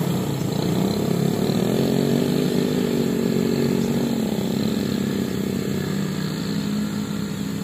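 A small petrol engine running steadily, its pitch drifting slightly up and down.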